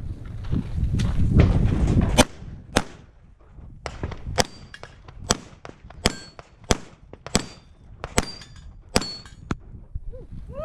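Pistol shots in a quick string, about a dozen, many followed by the high ring of bullets hitting steel plates. A low rumble comes before them for about the first two seconds.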